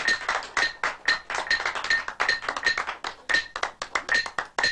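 Sharp claps in a quick, irregular run, several a second, many with a short bright ring.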